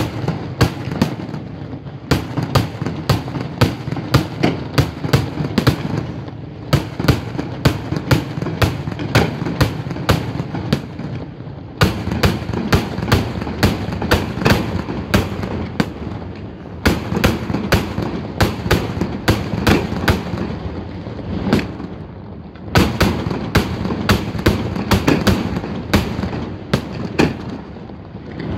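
Daytime fireworks display: aerial shells bursting in rapid runs of sharp bangs, often several a second, over a continuous low rumble. The runs are broken by brief lulls about every five seconds.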